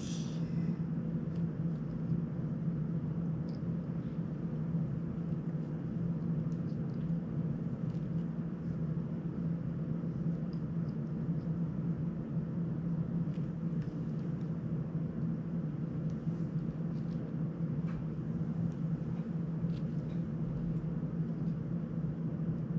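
A steady low mechanical hum, with faint scattered clicks from small drone parts and wires being handled by hand.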